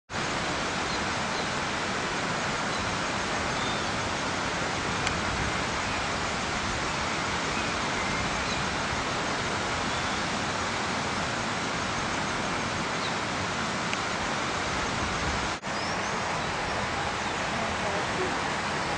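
Steady rushing noise, even from low to high pitch, with faint short chirps above it and a brief dropout about three-quarters of the way in.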